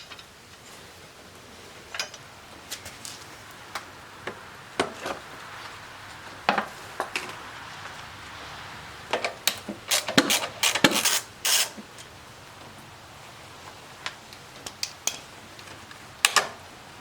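Hand tools clinking and clanking against metal as the lawnmower blade is refitted, in scattered sharp knocks with a busier run of clanks about ten to twelve seconds in.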